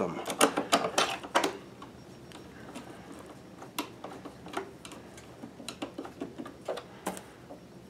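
Hand screwdriver turning a long screw into the metal bottom plate of a Pfaff Creative Vision sewing machine: sharp, irregular clicks of the tip and screw on metal, a quick cluster of loud ones in the first second and a half, then sparser, fainter clicks.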